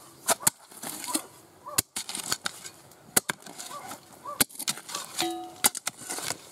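Spades chopping into earthy, stony soil, several sharp strikes. Between them a hunting dog barks muffled from underground, baying at a badger in its sett.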